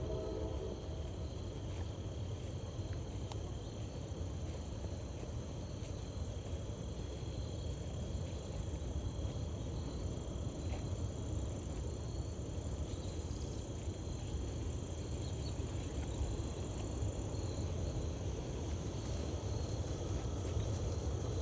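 Crickets chirring in a steady, continuous drone of several high tones, over a low, even rumble. A held pitched tone stops within the first second.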